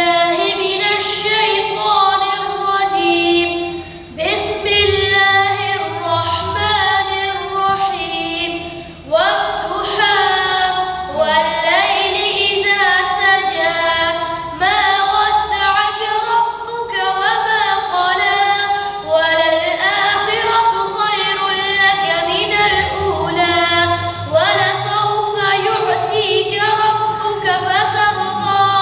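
A boy reciting the Quran aloud in a melodic, sung style into a microphone, in long gliding phrases separated by brief pauses.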